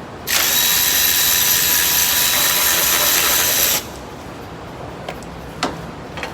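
Handheld power tool running steadily for about three and a half seconds as it spins out a timing-cover bolt, then stopping abruptly. A few light clicks follow near the end.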